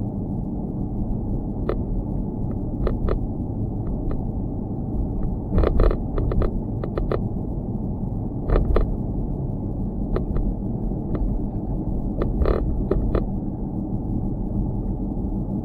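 Steady low rumble with irregular sharp rattling clicks, a few every couple of seconds and sometimes in quick clusters: the noise of a loose GoPro mount rattling.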